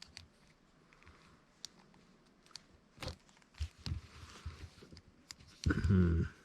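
Small plastic clicks, knocks and rubbing as a plastic arm pad is worked onto an action figure's arm and won't fit over the bicep. A brief murmur of voice near the end.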